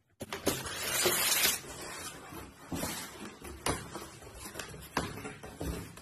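Packaging being handled while a stand mixer is freed from its box: a loud rustle of paper wrapping and styrofoam in the first second and a half, then several separate knocks and bumps of styrofoam and cardboard.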